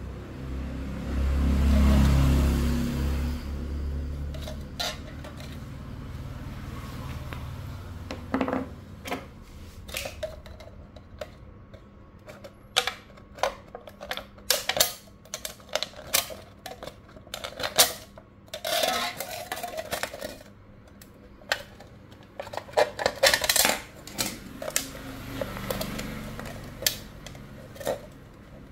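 Utility-knife blade cutting into a thin aluminium drink can: a run of irregular sharp metallic clicks, short scrapes and crinkles as the blade punctures and slits the can wall. A low rumble swells and fades in the first few seconds.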